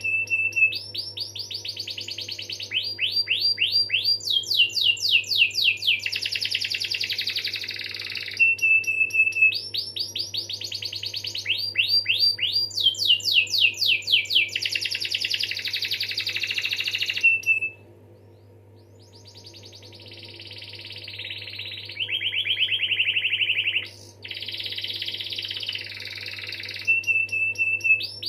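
Domestic canary singing long rolling trills: phrases of rapid repeated high sweeps alternating with steady chirping notes, broken by a short pause about two thirds of the way through.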